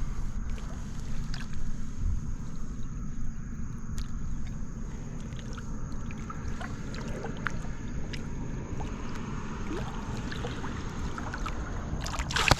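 Small boat on the water: a steady low rumble with scattered light ticks and knocks.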